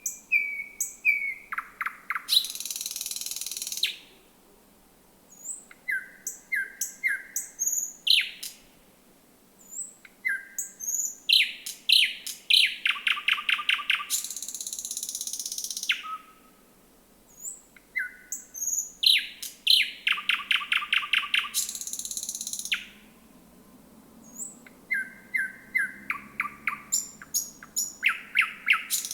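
Thrush nightingale singing a run of loud song phrases, about five, with short pauses between them. Each phrase opens with clear whistled notes, speeds into a fast series of dry clicking notes, then ends in a long harsh, buzzy rattle.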